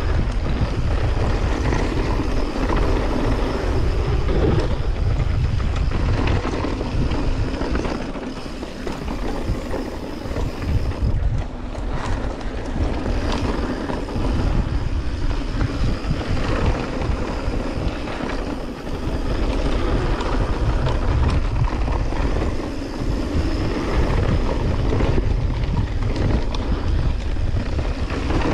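Wind buffeting a GoPro action camera's microphone, over the rumble and rattle of a mountain bike's tyres and frame running down a rough dirt trail, with scattered short knocks from bumps.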